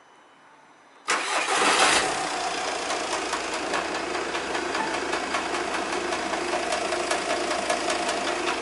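A Skoda Octavia vRS Mk2's 2.0 TDI diesel engine starts about a second in, with a loud flare for about a second, then settles to a steady idle. Sharp ticking and tapping run over the idle, a rattle that sounds like engine knock but is someone tapping on the car.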